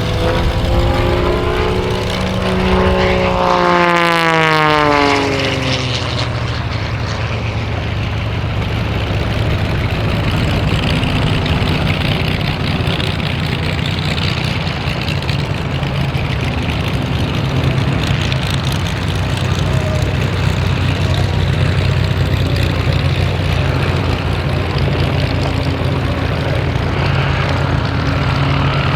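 Wolf Pitts Pro aerobatic biplane's piston engine and propeller passing by, its pitch falling sharply about four to six seconds in, then a steady drone as it flies on through its display.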